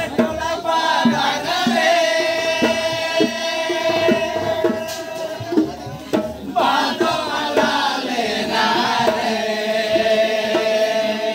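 Group of voices singing a Karam folk song in long held notes, over a hand-played barrel drum struck about twice a second. The singing breaks off briefly past the middle and starts a new phrase.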